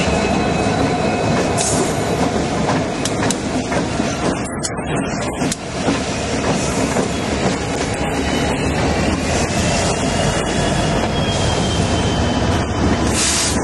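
A string of Union Pacific diesel-electric freight locomotives passing close by: engines running loud and steady, with the rumble and clatter of the wheels on the rails.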